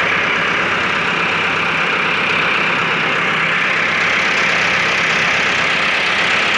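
Massey Ferguson 385 tractor's diesel engine running steadily while driving a wheat thresher through its PTO shaft; the engine and the thresher's spinning drum and fan make one loud, even mechanical noise.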